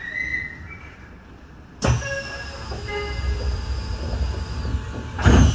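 Shin-Keisei Line commuter train standing still, with train noise. A sudden loud rush of noise comes in about two seconds in with a faint falling whistle over it, and a second, louder burst with a low thump follows near the end.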